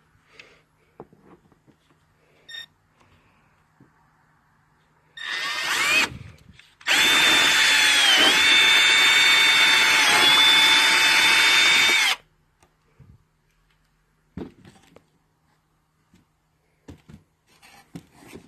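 Electric power drill: a short burst that rises in pitch, then a run of about five seconds at steady speed, its whine dipping in pitch twice as the bit bites under load. A few faint clicks and knocks of handling come before and after.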